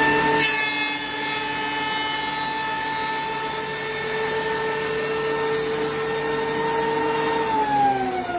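Electric jointer running with a steady motor whine, taking a shallow cut off a board, with a short burst of cutting noise about half a second in. About 7.5 seconds in it is switched off and winds down, its pitch falling.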